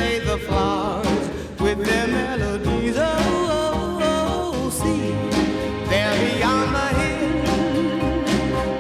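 Background song with a singing voice over a band accompaniment.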